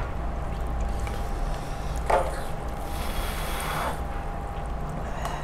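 Quiet eating sounds over a steady low room hum: forks working noodles in bowls, with a brief soft sound about two seconds in and a faint hiss around three to four seconds in.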